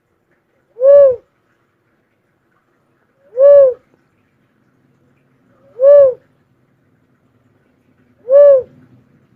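A bird known locally as the kobawon giving single hooting notes. Four calls come about two and a half seconds apart, each rising and then falling in pitch.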